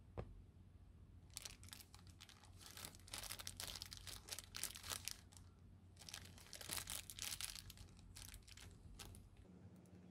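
Small zip-lock plastic bag of screws crinkling as it is handled and turned over in the fingers, in irregular bursts with a short pause about halfway.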